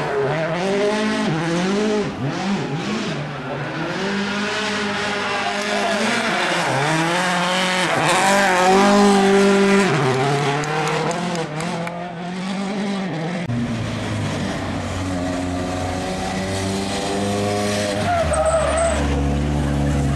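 Citroën C4 WRC rally car's turbocharged four-cylinder engine revving hard, rising and falling through quick gear changes as the car passes and slides through a corner. After about thirteen seconds the note turns steadier and lower, with a deep rumble near the end.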